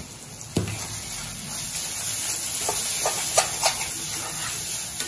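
Shredded banana stem frying in a kadai with a steady sizzle while a flat metal spatula stirs it, scraping and knocking against the pan a few times, most around the middle.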